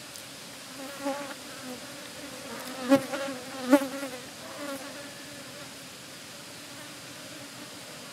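A flying insect buzzing close by, swelling and fading as it passes several times. It is loudest about three and four seconds in, then drifts off, over a steady background hiss.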